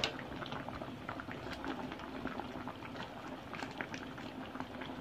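A pot of sinigang na tilapia broth boiling on the stove: a steady bubbling with many small irregular pops. A single sharp knock sounds right at the start.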